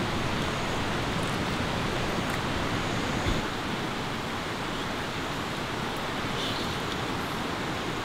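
Steady rushing of a valley stream flowing over rocks, with a single soft knock a little over three seconds in.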